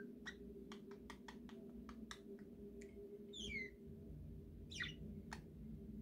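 A drowsy budgerigar makes a run of soft, irregular clicks over the first couple of seconds, typical of a budgie grinding its beak as it settles to sleep. It then gives two short chirps that fall in pitch, about a second apart.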